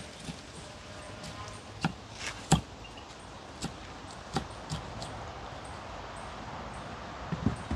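Irregular knocks and clicks of food preparation, ingredients and utensils being handled, over a steady outdoor hiss; the sharpest knock comes about two and a half seconds in, and two more close together near the end.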